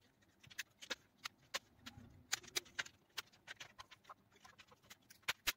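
Plastic display bezel of an HP laptop being prised loose by hand, giving faint, irregular clicks and small snaps as it comes away from the screen, with two louder snaps close together near the end.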